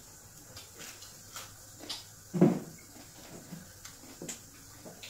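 Small clicks and smacks of people eating with their hands at a table, with one louder thump about two and a half seconds in.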